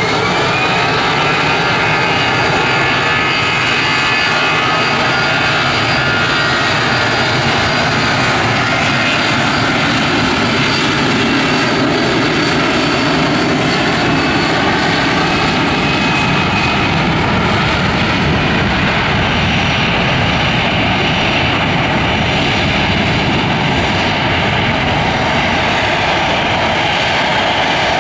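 Airbus A321 airliner's twin jet engines at takeoff thrust during the runway roll, a loud steady jet noise with whining tones. The tones rise in the first second or two, then slide down in pitch around the middle as the aircraft passes by and heads away.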